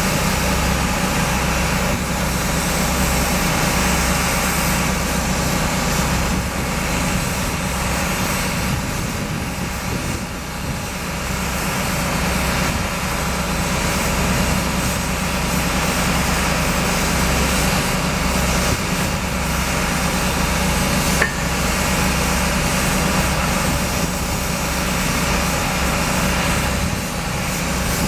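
Steady, loud machinery drone of a railway foundation-setting (drilling) train's rig and power pack at work setting a steel mast-foundation pile, a low hum under an even roar. A single brief click about two-thirds of the way through.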